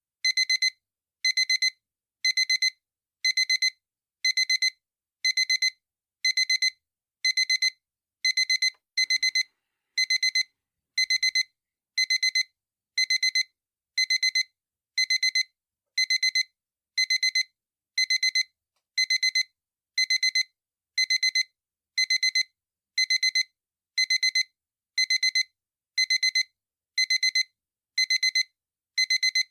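Digital alarm clock beeping: a short cluster of rapid, high-pitched electronic beeps, repeated evenly about once a second.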